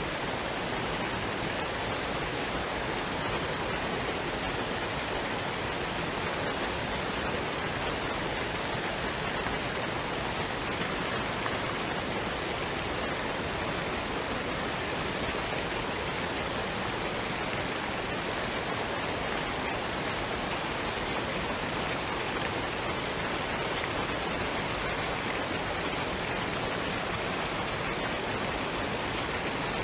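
Waterfall and stream water rushing, a steady, even noise with no breaks.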